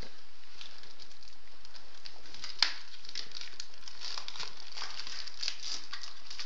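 Plastic film and an adhesive packing-slip pouch being peeled and torn off a cardboard box by hand: continuous crinkling and crackling, with one sharp snap a little before the middle.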